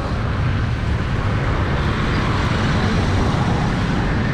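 Steady road traffic noise: a constant, even wash of sound heavy in the low range, with no distinct passes or impacts.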